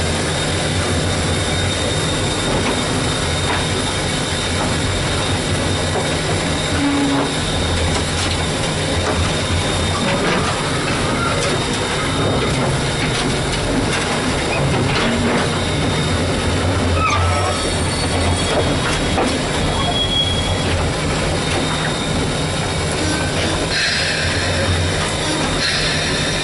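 Cab of the steam locomotive S.P.L.CO. #28 under way: steady rumble and rattling clatter of the locomotive and its wheels on the rails. A louder hiss comes in near the end.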